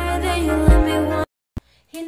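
Intro music with singing over a steady bass, cutting off suddenly just over a second in; then silence broken by one brief click.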